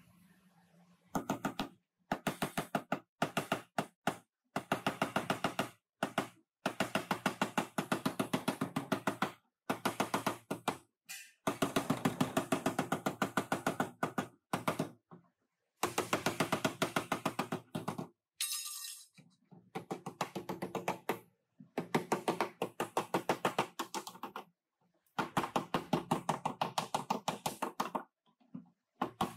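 Body hammer striking sheet metal over a dolly in quick, even runs of ringing taps, several strikes a second, broken by short pauses. This is the car's collision-damaged trunk floor and rear panel edge being beaten back into shape.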